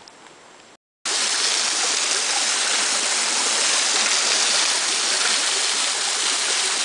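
Waterfall pouring off a rock overhang onto boulders: a steady, loud rush of falling water. It cuts in abruptly about a second in, after a moment of quiet woods with a few faint taps.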